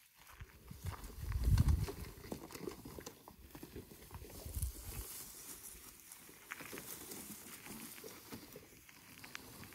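Footsteps crunching and rustling through dry grass as a long black plastic water pipe is dragged through it, with irregular crackles of grass and twigs. Dull low thuds about one and a half seconds in and again around four and a half seconds.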